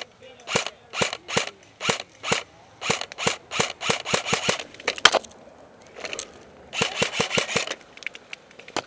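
Airsoft guns firing: a string of single sharp cracks about two to three a second, a denser flurry around the middle, then after a short pause a quick rapid burst.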